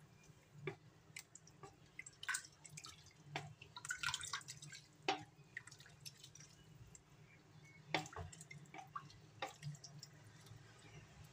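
Wooden spoon stirring soaked chana dal, sliced onion and part-cooked beef in watery broth in a metal pressure cooker: faint, scattered splashes and clicks of the spoon against the pot.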